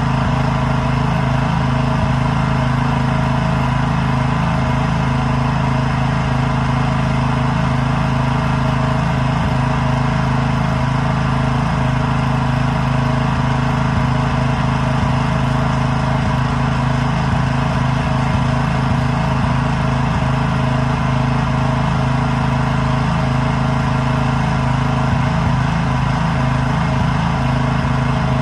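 Small engine running at a steady speed, its pitch unchanging throughout.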